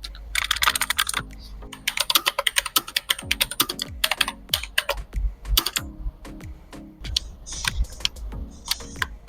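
Fast typing on a mechanical gaming keyboard, the AULA F2058: rapid runs of key clicks in bursts with short pauses between them.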